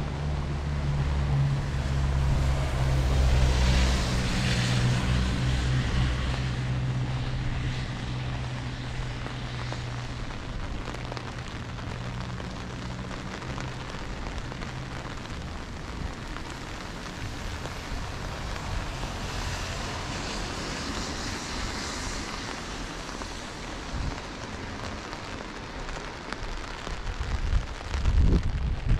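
Steady hiss of rain and wind with the low hum of an engine that fades away over the first third. The hiss swells twice, once early and once past the middle, and a few low bumps come near the end.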